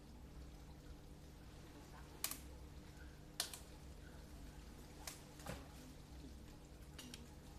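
Sharp clicks and snaps of tree branches being cut during pruning, five or six at uneven intervals over a faint steady hum.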